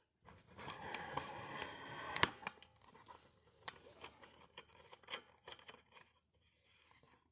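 Rustling and scraping handling noise for about two seconds, ending in a sharp click, followed by scattered light clicks and taps.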